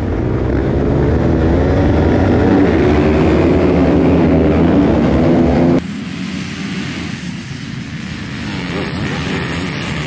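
A grid of off-road motorcycles revving hard together, many engines overlapping and rising in pitch. About six seconds in the sound cuts abruptly to a quieter, steadier drone of the pack of bikes.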